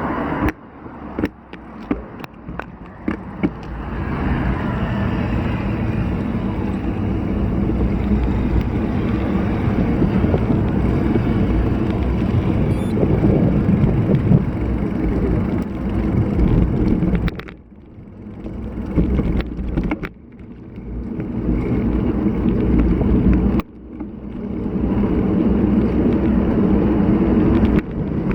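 Strong wind buffeting the microphone of a bike-mounted action camera while riding a road bicycle, mixed with tyre and road noise. A few sharp clicks and knocks come in the first few seconds, and the rush drops off briefly three times later on.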